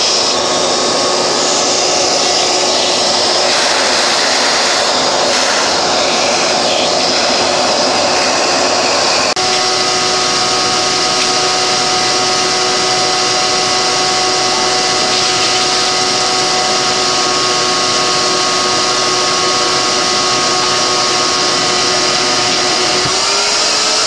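Wet/dry shop vacuum running steadily with a whining motor as it sucks dirt and foamy coil cleaner off an air handler's evaporator coil. The whine shifts slightly about nine seconds in and rises a little near the end.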